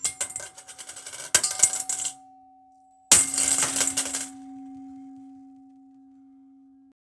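Coins dropping and clattering in two spills, the second about three seconds in and louder. After each spill a ringing tone lingers and slowly fades, then cuts off suddenly near the end.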